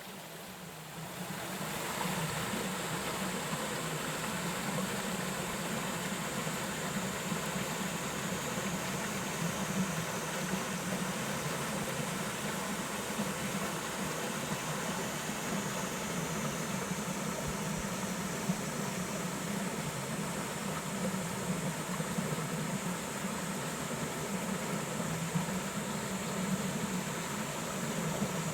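Dense chorus of many frogs calling at once, blending into a steady mass of low croaking that grows louder about a second in.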